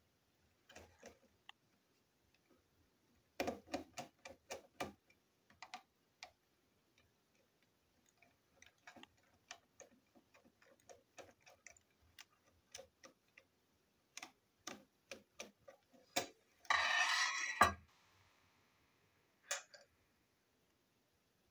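Screwdriver turning small screws in a plastic part: light clicks and ticks of the bit and the plastic being handled, with a quick run of about seven clicks near three and a half seconds in. A short scraping rustle about seventeen seconds in.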